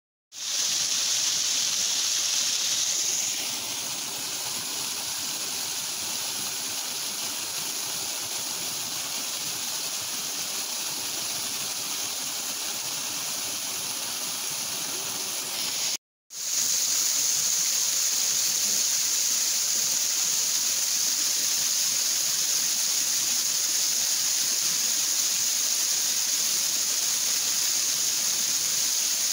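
Rushing water of a strongly flowing, half-frozen waterfall: a steady, even rush that drops a little about three seconds in, cuts out for a moment about halfway, and comes back slightly louder.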